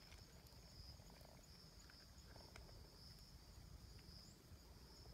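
Near silence with the faint, steady high-pitched chirring of insects and a few faint clicks.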